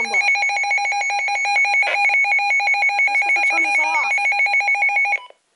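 Midland WR-300 weather alert radio's alarm siren sounding on its high level setting during a siren test: a loud, rapidly pulsing two-pitch electronic tone that cuts off suddenly near the end.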